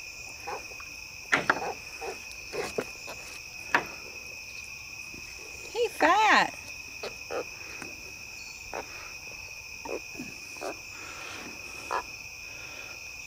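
Steady high-pitched chorus of night insects such as crickets, with scattered clicks and knocks from handling a catfish and unhooking it on a wooden dock. About six seconds in comes a short, loud, pitched call that bends up and down in pitch.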